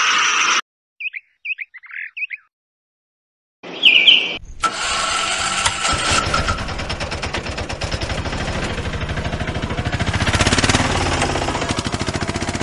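Background music cuts off, a few short bird chirps sound, then an auto-rickshaw engine starts with a short squeal and runs with a steady, fast putter, swelling a little near the end.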